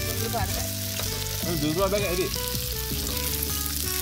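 Chopped sausages sizzling in oil in a frying pan as they are stirred with a spoon, with a steady hiss of frying. Background music plays underneath.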